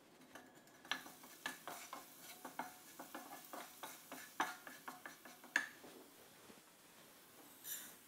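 Wooden spatula stirring chopped onion in a frying pan: a quick run of light taps and scrapes against the pan, then a short hiss near the end as rice is poured in.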